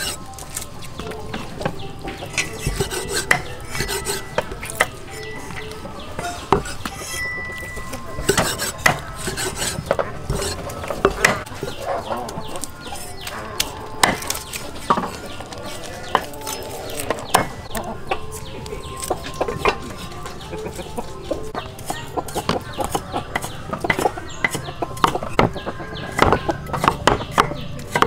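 Cleaver chopping on a round wooden chopping block: an irregular run of sharp knocks. Chickens cluck and a rooster crows among the chops.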